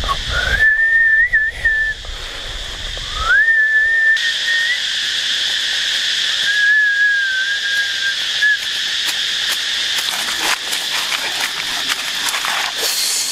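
A person whistling through pursed lips: three long, mostly level whistled notes, each held for one to two seconds with small slides at the ends, the last one near the middle. A steady high hiss runs underneath.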